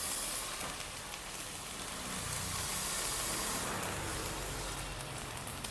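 Stick-welding arc from a Kobe 315A inverter welder, a 3.2 mm electrode burning steadily on thick steel at full current, with a continuous crackling sizzle. A low steady hum joins about two seconds in.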